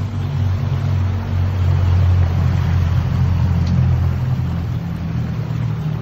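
Fishing boat's engine running steadily under way, a low hum, with the rush of wind and churning wake water over it.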